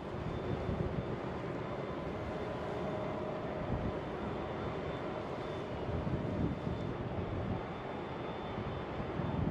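Low, steady rumble of ship engines, with gusts of wind on the microphone and a faint steady high tone above it.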